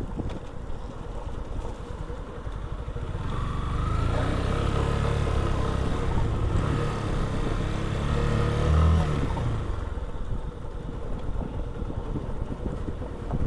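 A motor vehicle's engine grows louder about four seconds in, peaks about nine seconds in and fades by about ten seconds, over a steady background noise.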